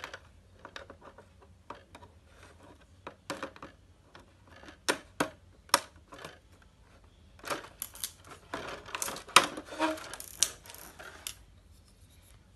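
Scissors snipping and cracking through a stiff clear plastic blister tray: sharp, irregular clicks and crackles, busiest in two spells, the second one near the end the loudest.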